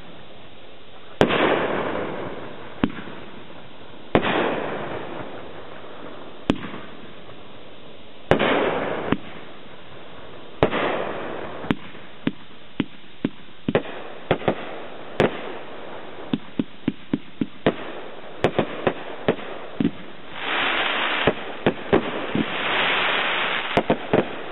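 Cutting Edge Fireworks 'Outta Here' gold glitter fan cake firing shot after shot. At first single bangs come every few seconds, each followed by a hissing tail that fades over a second or two. About halfway through the pace picks up to quick shots about two a second, with longer stretches of hiss near the end.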